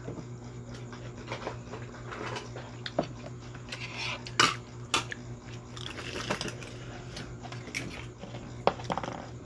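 Scattered clicks, knocks and scrapes of eating utensils: a spoon on a plastic plate and a knife prying open raw oyster shells on a cutting board, with some chewing.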